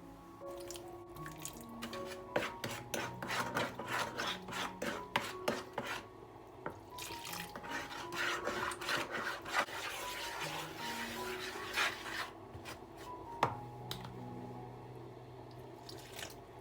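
Hand food-preparation sounds: a run of quick rubbing and scraping strokes, then a longer, denser scraping hiss, with a few clicks of utensils on dishes, over soft background music.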